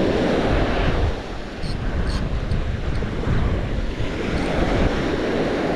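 Ocean surf breaking and washing up a sandy beach, with gusty wind buffeting the microphone.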